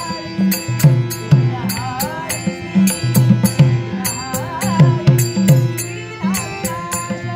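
Traditional Konkani devotional music: a two-headed barrel drum (pakhawaj) beats a rhythm, small hand cymbals click in time, a harmonium holds steady notes, and a voice sings in bending, ornamented phrases.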